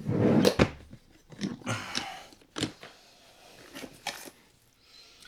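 Packaging and parts being handled: a loud rustle at the start, then scattered knocks, clicks and short rustles that thin out toward the end.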